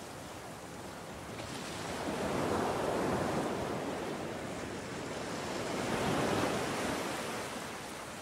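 Sea surf washing onto a beach, a steady rush of water that swells up twice as waves come in.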